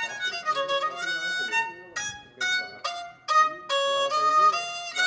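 Small handmade coconut-shell fiddle with a bamboo neck, bowed to play a simple melody of short separate notes, with a few brief breaks between phrases.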